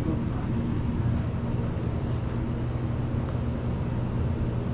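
Steady low electrical hum of refrigerated drink display cases, an even drone with no distinct events.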